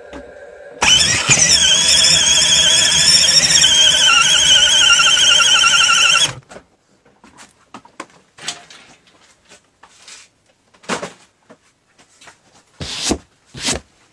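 A kids' electric ride-on motorbike's rear tyre spins in place on a painted board in a mini burnout, with a loud wavering squeal over the motor's hum. It starts abruptly about a second in and cuts off suddenly about six seconds in, followed by a few faint clicks.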